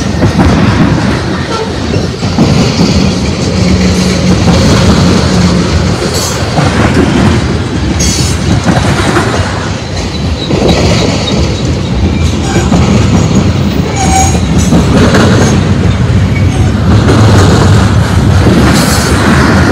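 Freight train cars rolling past at close range: steel wheels running on the rails in a loud, steady rumble.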